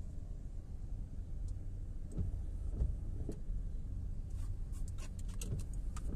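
Low, steady rumble of a car's cabin while it idles and creeps in slow traffic, with a few dull thumps and scattered light ticks and taps, most of them in the second half.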